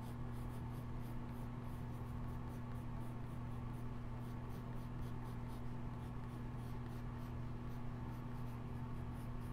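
Graphite pencil scratching across sketchbook paper in quick, repeated short strokes, over a steady low electrical hum.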